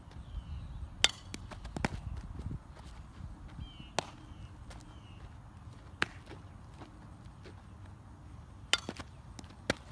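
Sharp pops of a softball smacking into leather fielding gloves during fielding and throwing drills, about six of them a second or a few seconds apart.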